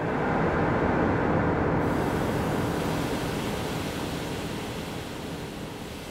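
Sound composition: a dense rushing noise over a faint low drone. It swells in suddenly, is loudest about a second in, then slowly fades.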